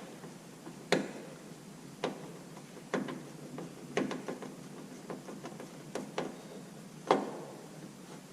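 Sharp clicks and knocks, about one a second and somewhat uneven in spacing, from hand tools and metal parts while a Jeep YJ's headlight and its retaining screws are being fitted. The loudest knock comes near the end.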